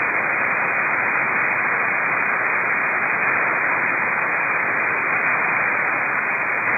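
Steady hiss of radio static from a receiver tuned to an open channel with no station speaking. It is evenly loud and sounds narrow and muffled, with nothing above the range of a voice channel.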